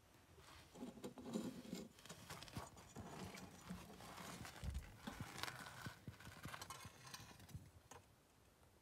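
Faint, irregular scraping, knocking and crunching of a rusty metal blade against rock and grit as it is pulled out of a crevice, with a dull low bump about halfway through.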